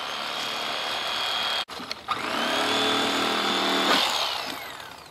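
Electric fillet knife motor running with a steady high whine. It cuts off abruptly about a second and a half in, starts up again a moment later, and winds down in a falling whine near the end.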